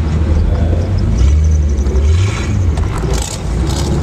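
Car engine running low and steady under throttle, heard from inside the cabin, with a few short sharp noises near the end.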